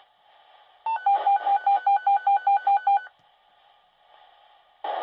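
Fire dispatch radio alert tone heard through a pager's speaker: a rapid run of about ten beeps at one pitch, about five a second, lasting some two seconds, between stretches of faint radio hiss. It is the alert that comes before a new dispatch call.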